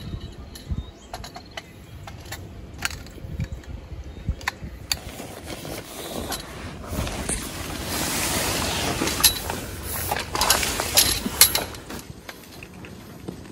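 Handling noises of camping gear: scattered sharp clicks and light clinks, with several seconds of louder rustling in the middle and a cluster of sharp clicks near the end of it.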